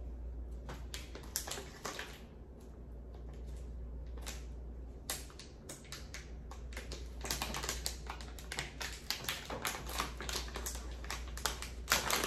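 Clear plastic snack bag of peanut butter cup popcorn being handled and opened by hand: irregular crinkles and crackles of the plastic, sparse at first and coming thick and fast in the second half.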